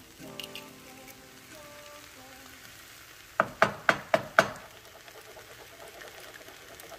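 Raw egg sizzling quietly in a hot non-stick saute pan of fried rice, with a run of five quick sharp taps about three and a half seconds in as a wooden spatula breaks the yolk and starts scrambling it against the pan.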